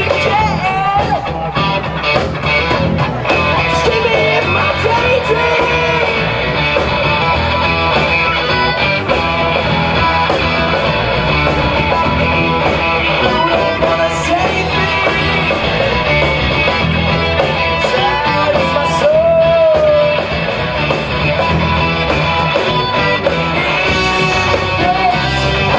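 Live rock band playing: electric guitars, bass and drum kit in a full, steady mix, with a young male lead vocal singing over it at times.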